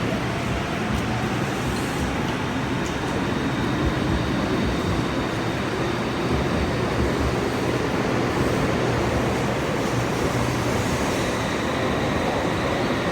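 Inside the cabin of a Shinkansen bullet train under way: a steady rumble and rush of running noise, with a faint high tone throughout.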